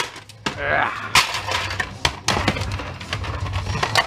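Plastic parts of a cheaply made VCR clicking, knocking and cracking as the front panel comes off and the chassis is handled, with a sharp knock about a second in and another a little after two seconds.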